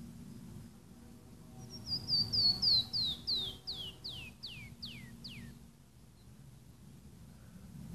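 Canyon wren singing one song: a cascade of about a dozen clear whistled notes, each sliding downward. The notes start high and quick and step lower and slower as they go, about two seconds in and lasting some four seconds.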